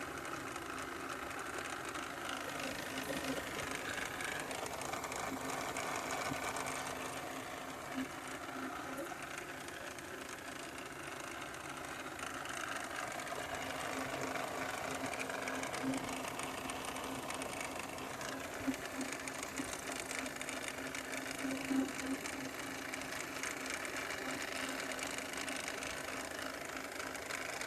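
2013 Volvo XC60's engine running with a steady, fast mechanical clatter and a few sharper clicks: the strange noise the owner is asking about.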